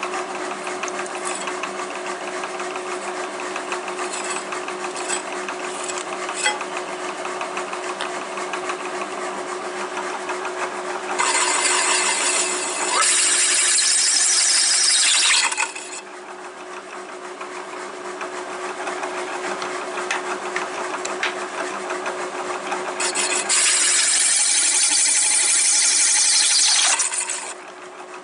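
Large step drill bit spinning in a machine spindle and cutting 7075 aluminum plate. A steady motor hum runs throughout, with two loud stretches of harsh cutting noise about four seconds each, one past the middle and one near the end, as the bit cuts through to larger steps.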